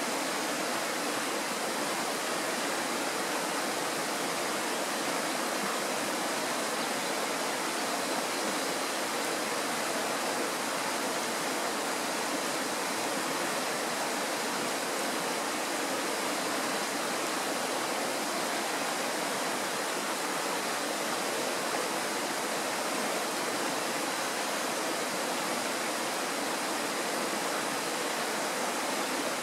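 Mountain stream running, a steady, even noise of flowing water that does not change.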